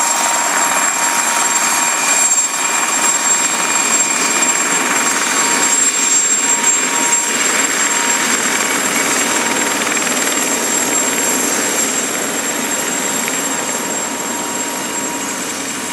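Mosquito XET single-seat ultralight helicopter running, a steady rush of rotor and engine noise with a constant high whine over it, easing off slightly near the end.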